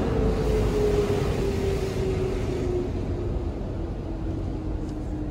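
Automatic car wash heard from inside the car's cabin: a steady rush of water spray against the body and glass, easing off after about two and a half seconds. Under it a machine hum slowly falls in pitch.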